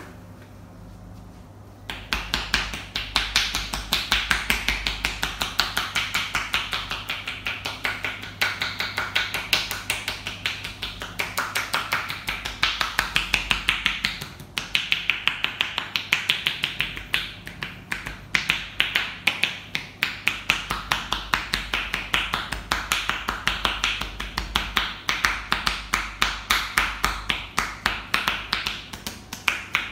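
Percussive hand massage: hands striking the body in a fast, even rhythm of about five sharp strokes a second, starting about two seconds in, with a brief break about halfway through.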